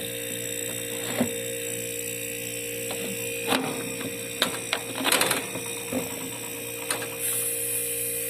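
Hermetic refrigerator compressor running with a steady hum while it blows through the system, with several clicks and knocks of handling. A high hiss starts about seven seconds in.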